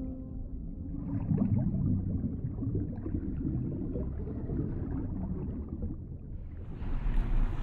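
Low, rumbling underwater water ambience with a churning, gurgling character; a brighter rush of water noise swells in near the end.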